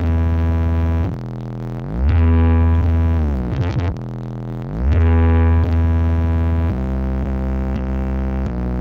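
Loud electronic music with heavy bass played over a carnival sound system: sustained synthesizer chords in phrases of about two seconds, each ending in a brief drop, with the pitch sliding down once near the middle.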